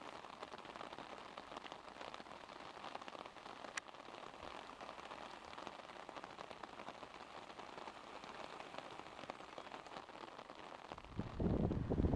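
Faint, steady outdoor water hiss picked up by a camera's built-in microphone, with a single click about four seconds in. Near the end, louder wind buffeting the microphone cuts in.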